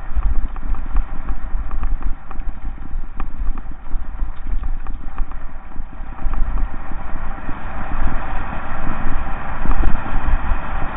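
Mountain bike rolling fast down a loose gravel track, heard close up from the rider's camera: tyres crunching over stones with constant small knocks and rattles from the bike, under heavy wind rumble on the microphone.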